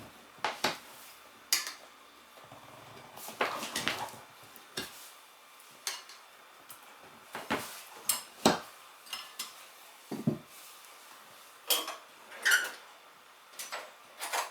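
Metal tyre tools clinking and scraping against a motorcycle wheel rim during a hand tyre change: a dozen or so irregular sharp clinks, one ringing briefly near the end.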